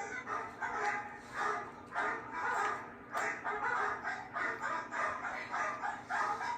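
Domestic fowl calling in a continuous run of short, closely spaced clucks and squawks.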